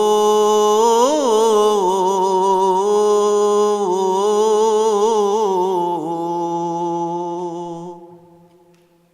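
A male voice chanting a melismatic Coptic Orthodox hymn without instruments. Long held notes waver with vibrato and ornamented turns, and the last note dies away about eight seconds in.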